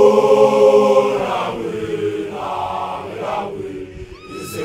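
Voices chanting together: a long held note opens, followed by shorter chanted phrases. A high, wavering rising call begins near the end.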